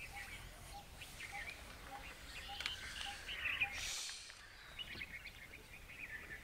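Several wild birds calling: scattered high chirps throughout, with a low short note repeated about three times a second over the first couple of seconds. A brief hiss comes about four seconds in.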